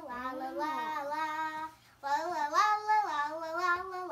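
A young girl singing held, gliding notes in two phrases, with a short break just before two seconds in.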